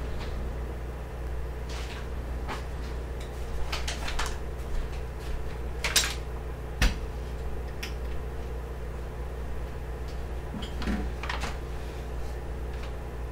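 Kitchen handling noises as a bag of flour is picked up and handled at the counter: scattered knocks and rustles, the loudest a pair of sharp knocks about six and seven seconds in, over a steady low hum.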